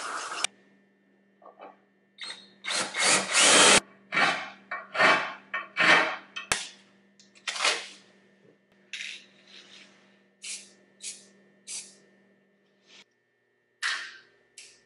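Compressed air from a blow gun on a shop air hose, let out in about a dozen short hissing bursts of uneven length. The longest and loudest comes about three seconds in.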